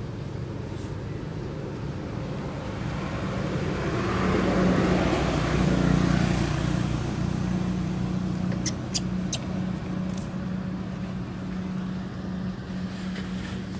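A road vehicle passing, its noise swelling and then fading over a few seconds midway, over a steady low engine hum. A few sharp clicks follow.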